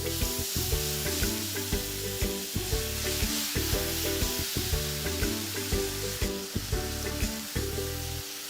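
Butter-and-flour roux sizzling in a hot frying pan as milk is added and stirred in for a béchamel sauce, the hiss starting suddenly. Background music plays underneath.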